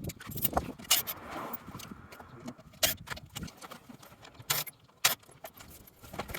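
Scattered metallic clicks and clinks of hand tools and fasteners being handled, a dozen or so separate knocks with no motor running.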